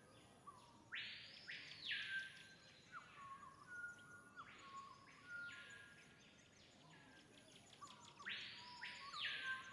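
Faint short chirping calls with a soft hiss, repeating three times in the same shape about every three and a half seconds over a quiet background.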